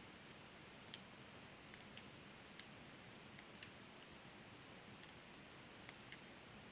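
Knitting needles clicking faintly and irregularly as stitches are worked along a row, over a low steady hiss.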